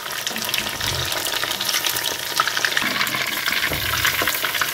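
Battered chicken pieces deep-frying in hot mustard oil in a kadai, a steady crackling sizzle as they near light golden brown. Toward the end a slotted spoon stirs through the oil and lifts pieces out.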